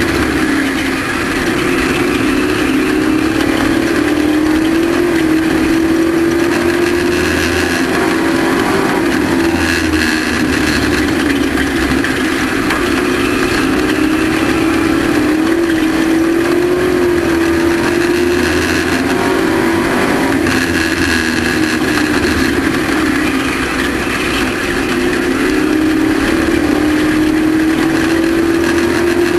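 Race truck engine running hard at racing speed. It holds a steady drone whose pitch rises and falls every ten seconds or so as the throttle comes on and off around the oval.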